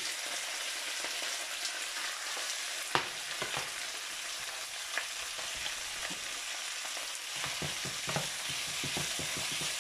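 Raw pork pieces sizzling as they fry in hot oil in a frying pan, with a steady hiss. A wooden spatula stirs them, knocking and scraping against the pan a few times, most often near the end.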